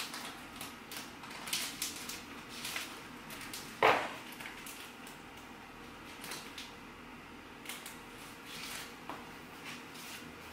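Scattered handling noise from packing an order: light clicks and rustles, with one sharp knock about four seconds in.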